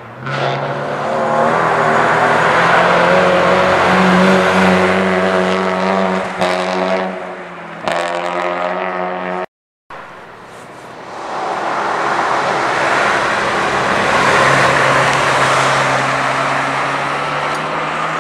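Rally car engines at high revs as cars pass on the stage. The first engine note dips briefly twice near the middle and then cuts off abruptly. After a short gap a second car approaches and passes at full throttle.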